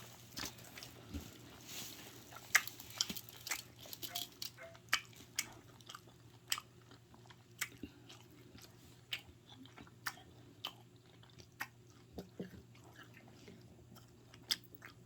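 A person eating close to the microphone, chewing and crunching food. The crunchy clicks come quickly at first and then about one a second.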